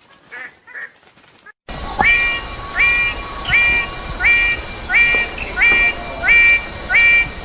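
A bird-of-paradise calling the same short, flat-pitched note over and over, about once every 0.7 seconds, starting abruptly about two seconds in after a few fainter calls. A steady high-pitched hum runs under the calls.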